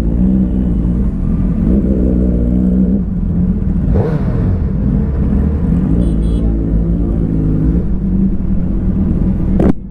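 Motorcycle engine running on the move over a steady low rumble, its note rising and falling. There is a short break with a click near the end.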